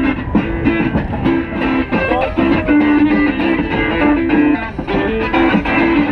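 Busker's electric guitar playing a melody of held notes.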